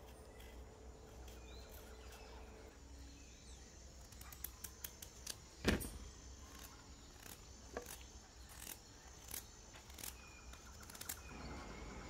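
Knife peeling a raw potato by hand: faint scrapes and small clicks, scattered through the second half, with one louder click about halfway through.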